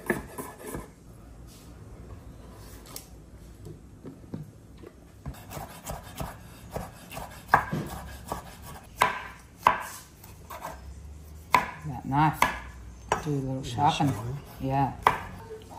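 Knife chopping on a cutting board: irregular sharp knocks, few at first and then coming quickly for the rest of the time.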